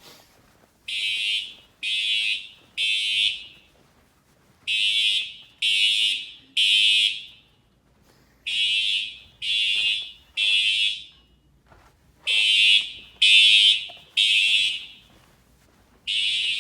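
Siemens U-MHU-MCS fire alarm horns sounding the temporal-three evacuation pattern: three short blasts, a pause, then three more, repeating about four times.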